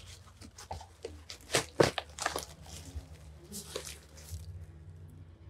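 Taped cardboard package being cut with a dull pocket knife and torn open by hand: a run of sharp rips and crackles of cardboard and packing tape, the loudest a little under two seconds in, then quieter rustling as the package is handled.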